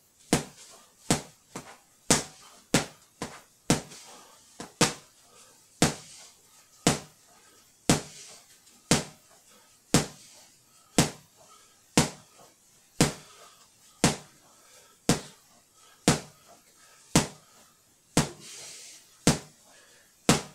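12oz boxing gloves punching a punch bag: a series of sharp slapping hits, a few quick ones at first, then settling into a steady punch about once a second.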